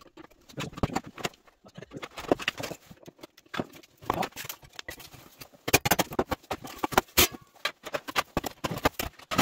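Irregular clicks and light metallic taps of a screwdriver working on the screws of a TV/FM modulator's circuit board and sheet-metal case during disassembly.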